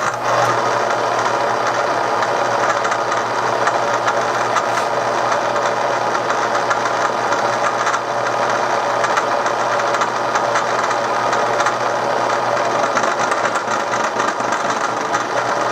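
Milling machine with a six-flute end mill cutting away the fins of a cast iron Harley-Davidson Sportster cylinder head. It starts abruptly and runs steadily as a loud, dense cutting noise over a low motor hum.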